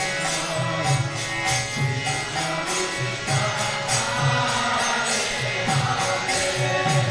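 Devotional mantra chanting set to music: voices singing a chant over a steady, jingling percussion beat.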